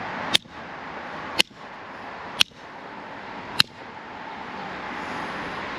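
Channel-lock pliers hammering a soldered copper pipe joint: four sharp metallic clanks about a second apart. The joint holds, showing no sign of cracking.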